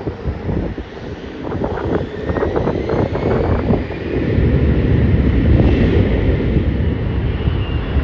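Airliner's jet engines rumbling as it passes, getting louder about halfway through, with a faint high whine gliding in pitch.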